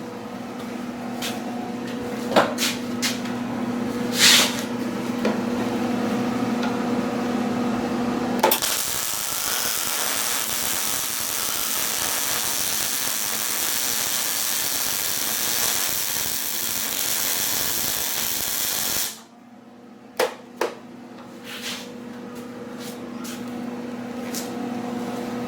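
MIG welder laying a weld bead: about ten seconds of steady, even hiss that starts abruptly about a third of the way in and cuts off suddenly. Before and after it there is a steady low hum with a few sharp clicks.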